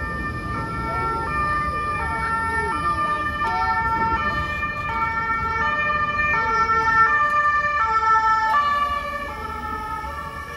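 Two-tone emergency-vehicle siren alternating high and low about every 0.7 seconds, growing louder and then fading away near the end as the vehicle passes.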